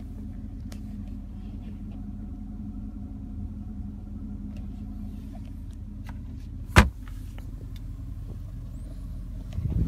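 The 2013 Mercedes-Benz S63 AMG's 5.5-litre twin-turbo V8 idling, heard inside the cabin as a steady low hum. A single sharp knock comes about two-thirds of the way through.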